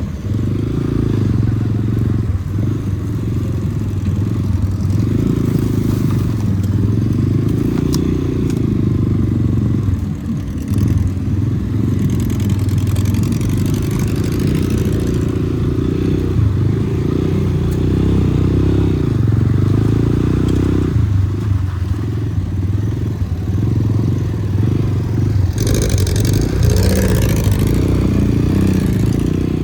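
An off-road vehicle's engine running while driving, its pitch rising and falling as the throttle changes. Near the end comes a few seconds of hiss.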